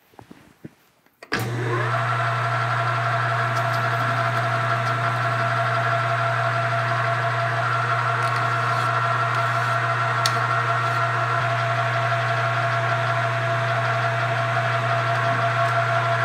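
Metal lathe running steadily with its chuck spinning the workpiece, a continuous machine hum that starts abruptly about a second in.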